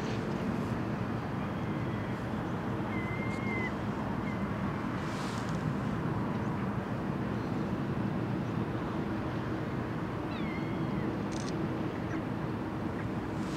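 Steady low hum of ships' engines running in the harbour, over a wash of wind and water noise. A bird calls briefly twice, once about three seconds in and again near the end.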